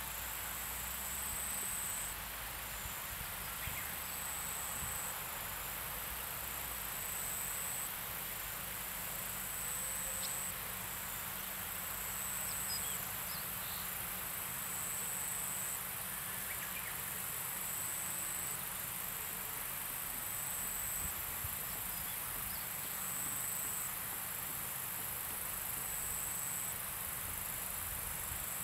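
Insects calling in long grass: a high buzzing trill that comes about every two and a half seconds, each lasting about a second, over a constant high insect hiss and a low rumble.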